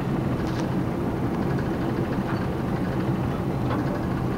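Via Rail passenger train running, heard inside the coach: a steady low rumble and hum, with a couple of faint clicks.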